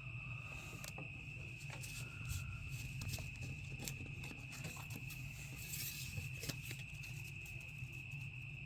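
Faint steady high-pitched whine over a low hum, with scattered soft clicks from trading cards being handled.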